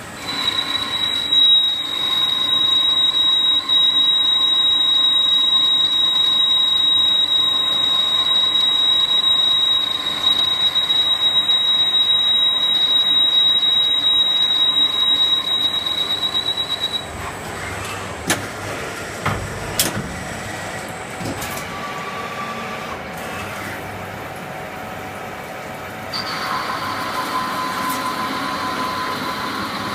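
CNC lathe turning a part, with a steady high-pitched whistle from the cut for the first half. It stops, a few sharp clicks follow, and a lower steady whine starts near the end.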